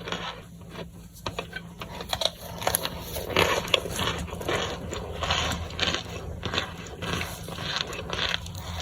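Crinkling, crackling and crunching as crumbly microwaved chunks are unwrapped and handled, a rapid irregular run of small clicks and scrapes that grows busier about three seconds in.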